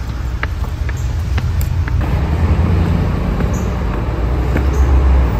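Steady low vehicle rumble with a few faint ticks.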